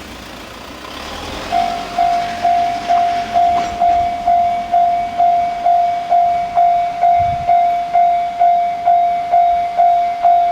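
Japanese level-crossing warning bell starting about one and a half seconds in, a single ringing tone struck about twice a second with each stroke fading quickly. This is the crossing alarm that a train is approaching.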